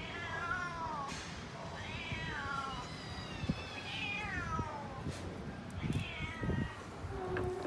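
Hungry stray cats meowing for food: four drawn-out meows, each falling in pitch.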